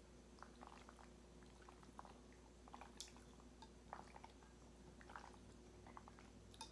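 Faint close-up eating sounds: soft wet smacks and clicks of a mouth chewing creamy alfredo pasta, scattered irregularly, with a sharper click about three seconds in.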